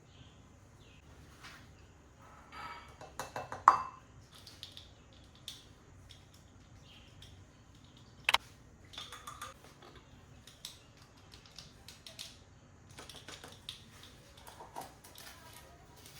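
Scattered light clicks, taps and rattles of small objects being handled, with a louder clatter about 4 s in and a single sharp click a little after 8 s.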